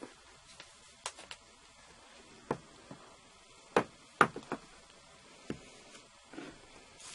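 Apple Watch's white cardboard packaging being handled on a tabletop: a series of light knocks and taps as the box pieces are pulled apart and set down, the two loudest a little after the middle, with a soft rustle near the end.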